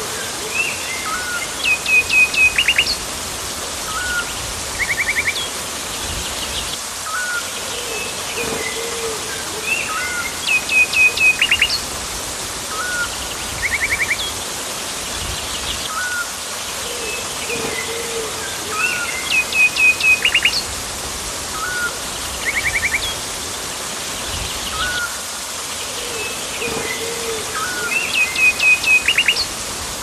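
Rainforest birds chirping and calling over a steady hiss. A burst of rapid, louder calls comes about every nine seconds, and the same sequence of calls repeats each time, as in a looped recording.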